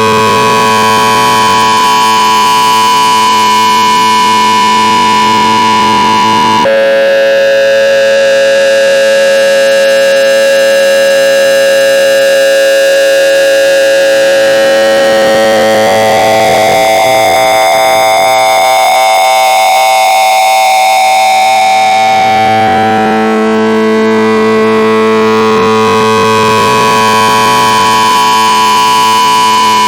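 Loud, harsh electronic drone of many held tones sounding at once, steady in level. It switches abruptly to a different cluster of tones about a quarter of the way in, slides upward a little past halfway, and switches back about three-quarters through.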